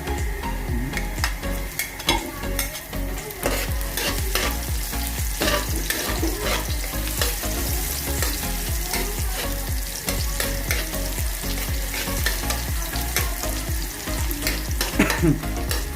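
Onion frying in hot cooking oil, a steady sizzle, while a spatula stirs and scrapes the pan with many quick clicks.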